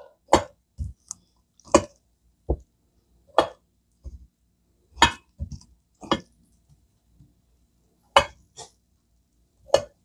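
A metal fork clinking and tapping against a cast-iron skillet and a plate as roasted radishes are lifted out one at a time. There are about a dozen short, sharp clinks at uneven intervals.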